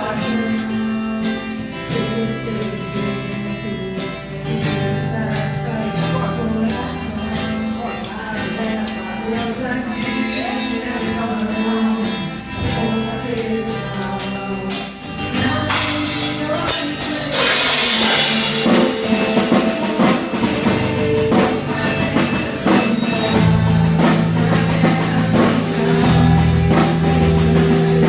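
Live worship band playing a song with drum kit and guitar, the music growing louder in the second half.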